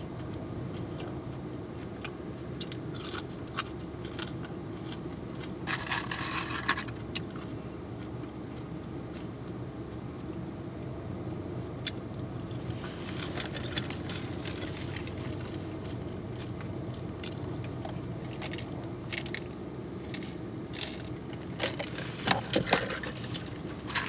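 A person chewing crispy KFC fried food, crunching and crackling in bursts: a loud spell about six seconds in, another from about thirteen to fifteen seconds, and more near the end, over a steady low hum.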